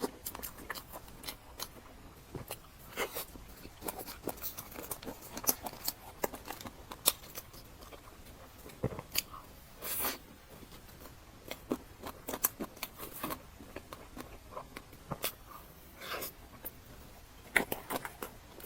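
Close-miked eating sounds: a person biting and chewing soft layered cake, with many short, irregular wet mouth clicks and smacks.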